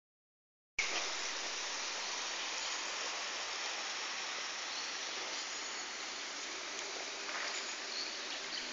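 Steady, even outdoor hiss of a park ambience, starting abruptly under a second in after a brief silence, with a few faint high chirps over it.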